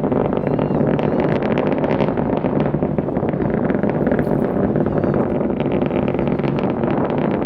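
Starship SN11's Raptor rocket engines during ascent, heard from a distance as a steady crackling rumble. Wind buffets the microphone.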